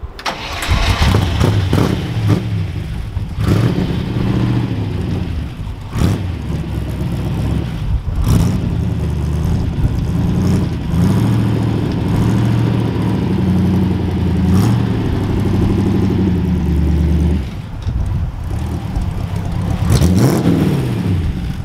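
V8 engine of a Frogeye Austin-Healey Sprite running as the car is driven slowly, its revs rising and falling, with a few sharp knocks along the way. The note drops about three-quarters of the way through, then there is one short rev near the end.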